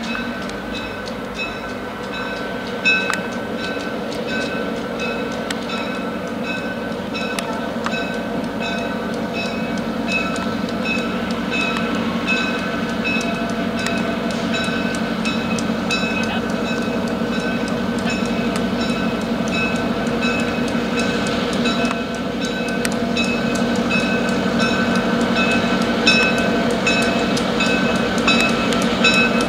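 EMD GP9 diesel locomotive with a 16-cylinder 567 engine, running as it pulls passenger cars slowly past, growing louder as it draws near. A high ringing repeats about twice a second over the engine.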